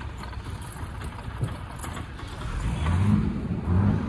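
Motor vehicle engines running nearby, with a steady low rumble that swells louder about three seconds in and again near the end.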